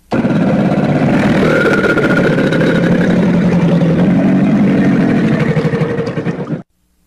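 A crocodile's long, low, rough growl with a rapid pulsing texture. It starts suddenly and cuts off after about six and a half seconds.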